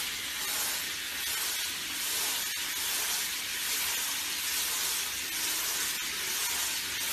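Handheld shower head spraying a steady stream of water onto a dog sitting in a plastic tub: an even, unbroken hiss.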